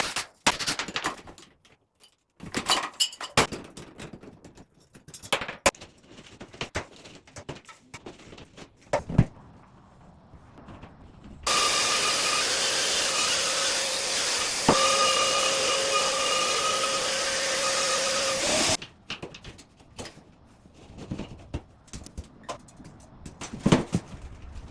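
Scattered knocks and clatter of work on a ceiling, then a power tool running steadily for about seven seconds with a steady whine.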